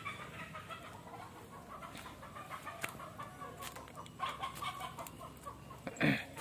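Chickens clucking in short, repeated calls, with scattered clicks and one short, loud sound near the end.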